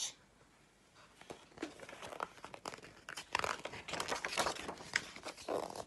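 Paper pages of a picture book rustling and crinkling as they are handled and turned, with scattered small clicks, starting about a second in.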